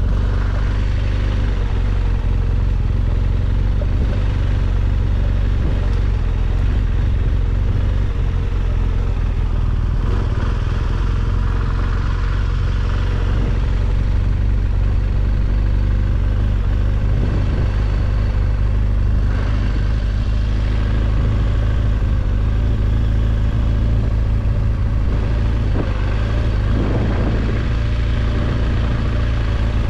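BMW R1200GS boxer-twin engine running steadily under way, its level staying even throughout.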